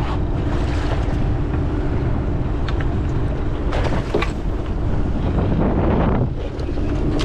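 Wind buffeting the microphone over the steady hum of a boat's engine and the wash of open-ocean water along the hull. A few sharp splashes stand out about four seconds in.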